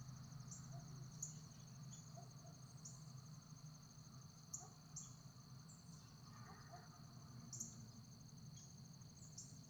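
Crickets trilling steadily and faintly, with a few faint sharp crunches from deer chewing fallen apples.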